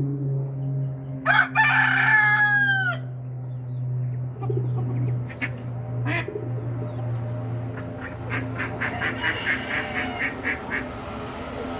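A rooster crows once, about a second in, its call dropping in pitch at the end. Near the end comes a quick run of clucks, over a steady low hum.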